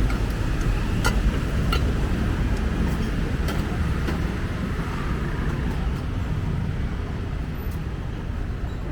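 Steady city street traffic noise, a low rumble of passing vehicles, with a few short sharp clicks or clinks in the first half.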